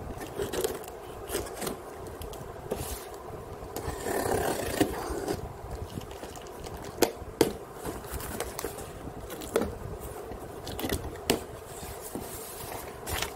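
A cardboard shipping box being handled and slit open with a retractable utility knife: scraping as the blade cuts through the packing tape, a longer stretch of it about four seconds in, with sharp clicks and knocks from the knife and the box between.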